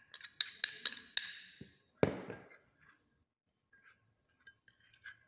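Glass clinking: a quick run of ringing clinks in the first second or so, a sharper knock about two seconds in, then faint clicks as a metal spoon stirs grated beeswax into oil in a ribbed glass bowl.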